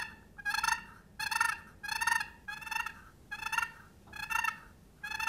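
Wooden turkey box call worked as a run of purrs: the paddle lid is twisted across the box's edge and curled back, giving short rolling turkey purrs, about seven of them at a steady pace of a little more than one a second.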